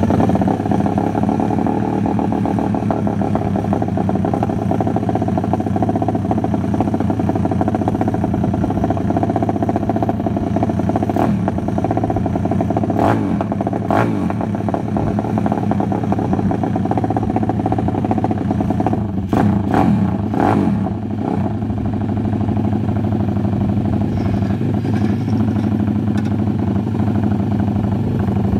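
Pitbike's single-cylinder four-stroke engine running steadily through an exhaust silencer freshly repacked with rock wool, with a few brief sharp cracks partway through; the tone through the new packing is judged very decent.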